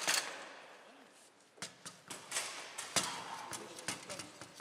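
Foosball play on a Bonzini table: the ball and the players' figures strike each other and the table walls in sharp, irregular knocks, with a quick flurry of hits near the end.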